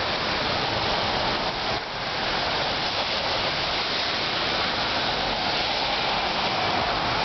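Steady hiss of sleet and snow falling in a storm.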